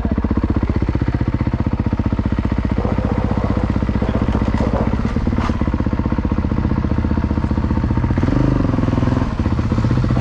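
Dirt bike engine running as the bike is ridden at low speed, heard up close from the rider's helmet, with a steady rapid pulsing. The engine note changes about eight seconds in as the bike slows and pulls up.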